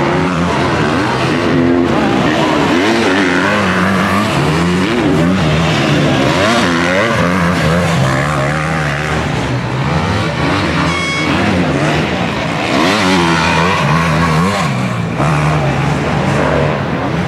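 Engines of several MX2 motocross bikes running and revving together, their pitches rising and falling as the riders blip the throttle. A brief high tone sounds about eleven seconds in.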